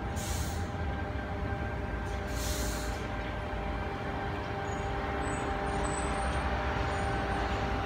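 Sydney Trains Tangara electric train running slowly into the platform and drawing to a stop: a steady hum with a faint steady whine. Two short hisses of air from its brakes come in the first three seconds.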